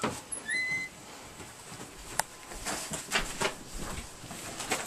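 A wooden door clicking open with a short high squeak, then irregular footsteps and clothing rustle as someone walks into a small room.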